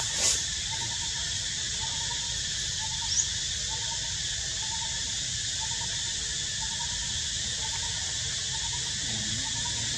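Steady hiss with a faint short chirp repeating a little under twice a second, and one brief rising high squeak about three seconds in.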